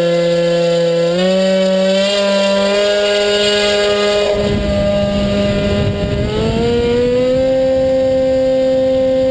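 Electric motor and pusher propeller of a HobbyKing Bixler model plane whining at full power, the pitch stepping up about a second in and rising smoothly again near seven seconds in as the throttle is opened. A rushing noise joins it from about four to six and a half seconds in.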